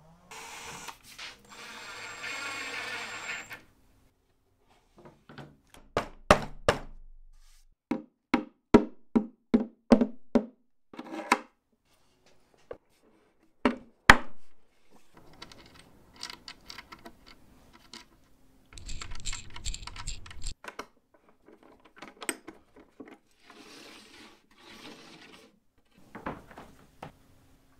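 A sequence of workshop hand-tool sounds: a scraping lasting about three seconds, then a run of sharp knocks and taps, some close together, followed by several short bursts of scraping and tool noise.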